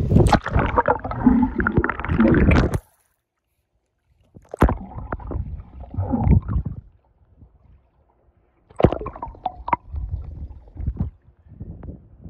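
Pool water splashing and gurgling right against a phone's microphone as it is dipped in and out of the water: a loud stretch of sloshing, then after about two seconds of silence, muffled underwater gurgles in separate bursts with silent gaps between.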